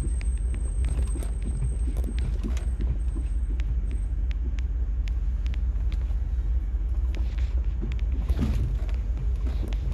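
Low, steady rumble of a car driving slowly, heard inside the cabin, with scattered light clicks and rattles.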